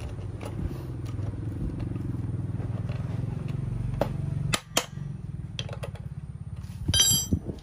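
Chinese TL43 43cc two-stroke brush-cutter engine running with a steady low buzz. It drops in level about four and a half seconds in, and a few sharp clicks come near the end.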